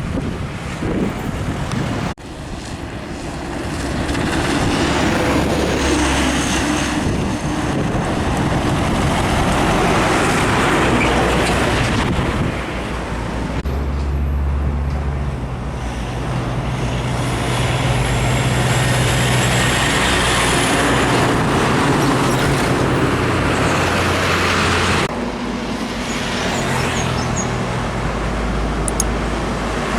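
Heavy diesel trucks running past on a highway, engines droning under steady tyre and traffic noise, the scene changing abruptly about 2, 13 and 25 seconds in.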